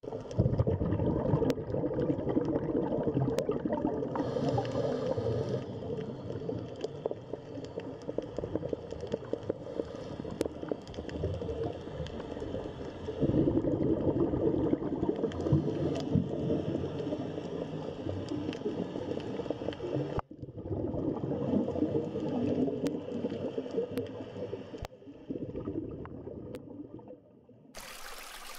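Muffled underwater noise from a dive camera, with irregular bubbling and gurgling swells. It cuts out briefly about two-thirds of the way through, then thins out near the end.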